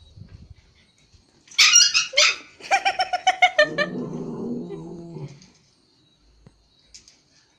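Small dogs at play, a Pomeranian and a Japanese Spitz. About a second and a half in come two sharp, high barks, then a quick run of yips, then a low growl lasting under two seconds.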